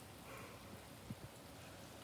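Faint steady rain noise from a thunderstorm, with a single soft thump about a second in.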